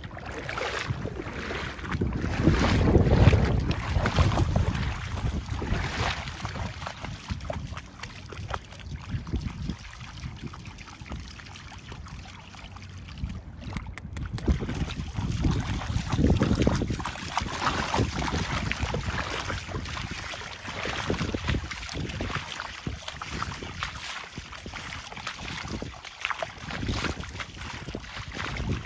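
Wind buffeting the microphone in gusts, a low rumble that is strongest a few seconds in and again around the middle, with scattered light splashes as a dog wades through shallow water.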